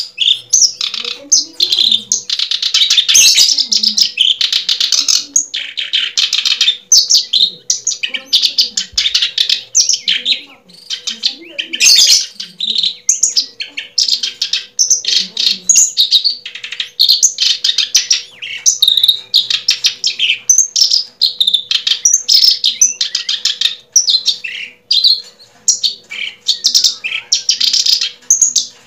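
Birds chirping rapidly and continuously, many short overlapping high chirps.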